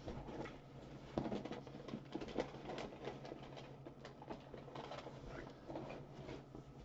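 Faint, irregular small scratches and taps of handling on a desk, over a low steady electrical hum.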